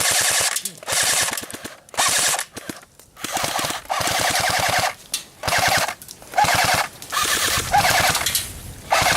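Airsoft guns firing on full auto in repeated bursts, each about half a second to a second and a half long, a rapid stream of shots with short pauses between bursts.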